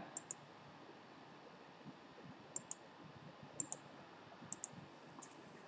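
Computer mouse clicks: four pairs of quick, sharp clicks, one pair just after the start and three more about a second apart from two and a half seconds in, over faint room hiss.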